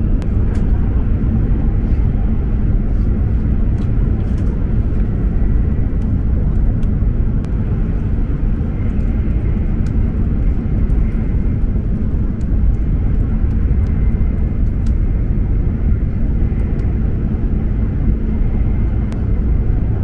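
Steady low rumble of an E7 series Shinkansen running at speed, heard inside the passenger cabin: wheel, track and air noise with a faint high whine over it.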